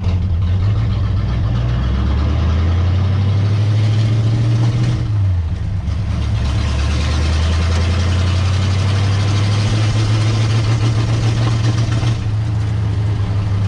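Carbureted car engine running while driving, heard from inside the car, over steady road and wind noise. The engine note shifts about five seconds in.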